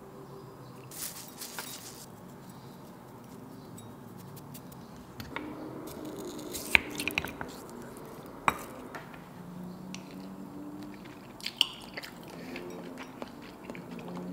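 Small tableware sounds while seasoning and serving cold tofu: seasoning bottles handled over a ceramic bowl, then a wooden spoon clicking and knocking sharply against the bowl several times.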